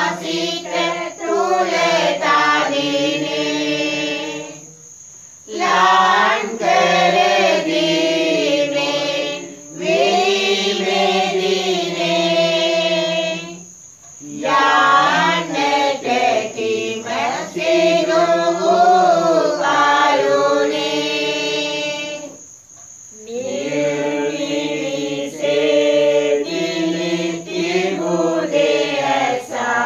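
A group of voices singing Pasan, the Sinhala Catholic Lenten passion chant. Long drawn-out phrases of about eight seconds each are broken three times by short pauses for breath.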